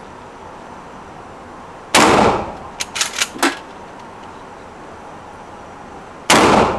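Two pump-action shotgun shots about four seconds apart, each a loud blast with an echoing tail. Between them come a few sharp clicks, the pump being racked to chamber the next shell.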